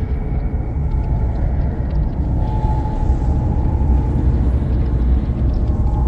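Paranormal ambience sound effect: a steady, deep rumbling drone, with a faint high held tone coming in about halfway through.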